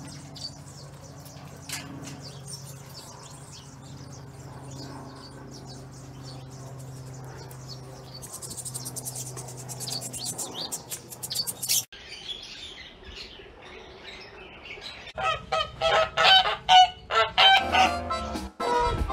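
Goats bleating loudly and repeatedly in the last few seconds. Earlier, small birds chirp over a steady low hum, with a fast run of clicks in the middle.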